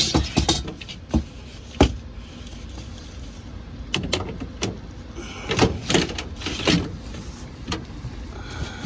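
A series of irregular knocks and clatters, several in a burst about two-thirds of the way through, over a steady low hum.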